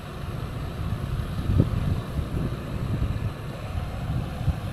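Wind buffeting the microphone, a fluttering low rumble, over the steady hiss of gas-canister camping stoves burning. A brief thump comes about one and a half seconds in.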